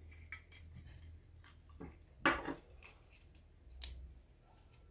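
Plastic case of a phone charger being pried apart by hand: scattered small clicks and cracks of the plastic giving way, the sharpest about two seconds in and another near four seconds.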